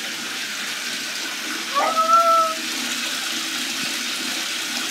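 Bath tap running steadily into a filling bathtub. About two seconds in, a brief high-pitched call rises and then holds for about half a second over the running water.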